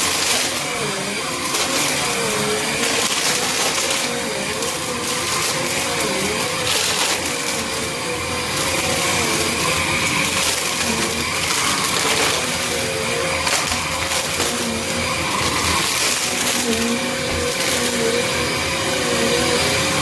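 Small Bissell upright vacuum running over crunchy debris, its brushroll crunching and crackling as it picks up the mess. The motor tone dips briefly every couple of seconds as the vacuum is pushed and pulled.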